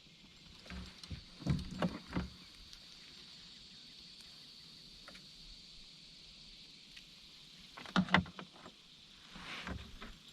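Knocks and clatter of gear against a small boat's hull, in a cluster about two seconds in and another about eight seconds in, over a steady high hiss.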